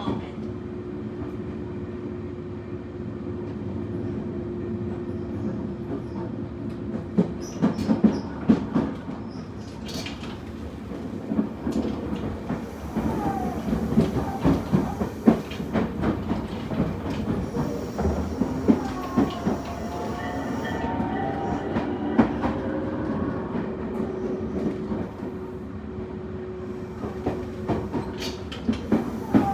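Tobu 20400 series electric train running, with the steady hum and tone of its Toyo Denki GTO-inverter-driven traction motors and the wheels clacking over rail joints, thickest in the middle. There are brief squealing glides about halfway through.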